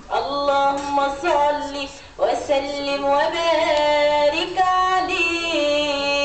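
A young woman singing a madih, an Arabic devotional praise song for the Prophet Muhammad, solo into a microphone: long held notes that step and waver in pitch, in three phrases with short breaks about two seconds and four and a half seconds in.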